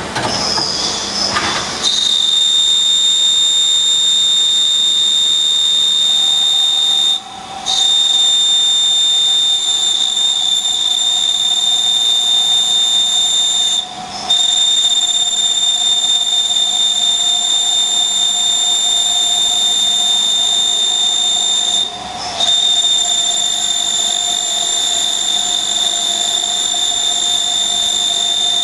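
CNC lathe drilling into the end of a spinning steel workpiece, a loud, steady, high-pitched whine that settles in after about two seconds, with three brief breaks in the sound.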